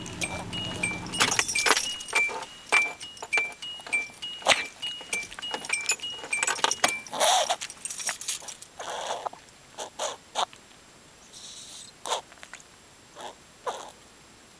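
A dog breathing noisily in separate rasping breaths, the sign of his breathing problem. In the first half come many sharp metallic clicks and rattles, and an electronic beep alternating between two high notes.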